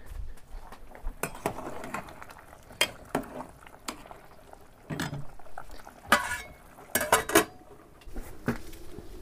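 Metal utensil clinking and knocking against a metal cooking pot as a boiling pot of vegetables and meat is stirred, in scattered irregular strokes, a few of them ringing briefly.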